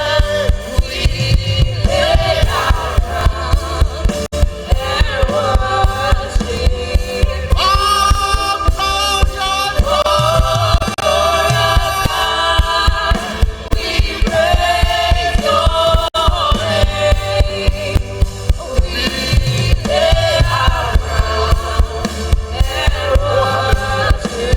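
Live gospel worship music: singers carrying a melody over a band with a steady beat.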